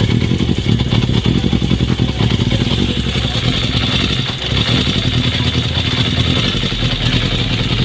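Motorcycle engine running steadily at a constant speed, with a brief slight dip about four seconds in.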